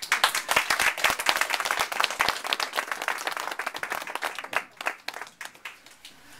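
Audience applauding: many hands clapping at once, breaking out suddenly and thinning out after about four seconds.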